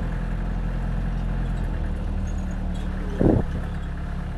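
4x4 vehicle engine running steadily while driving, with a short, loud sound about three seconds in.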